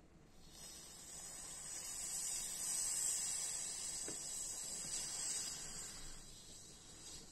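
Butane gas hissing out of a Dupont L1 lighter's valve while a small screwdriver works at it. The hiss swells over the first few seconds and fades away about six seconds in.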